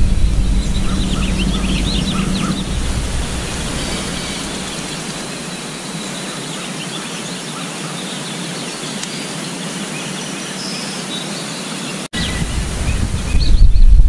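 Outdoor ambience: small birds chirping over a steady rushing noise, with low wind rumble on the microphone in the first few seconds. The sound cuts out for an instant about twelve seconds in, and the low rumble returns.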